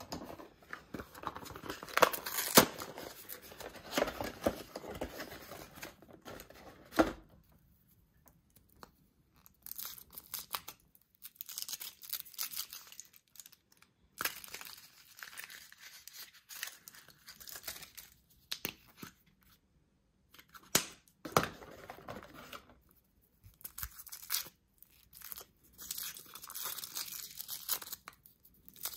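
Foil wrappers of Kinder Surprise chocolate eggs crinkling and tearing as they are unwrapped by hand, in irregular bursts with short pauses, with a few sharp snaps, the loudest in the first several seconds.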